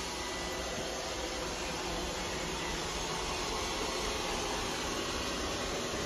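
Robot vacuum cleaner running, a steady hiss from its suction motor and spinning side brush as it drives along the floor.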